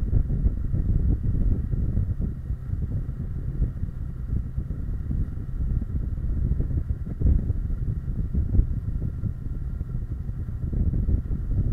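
Kawasaki Versys 650 parallel-twin engine running at a steady road speed, mixed with heavy wind rumble on the bike-mounted camera's microphone.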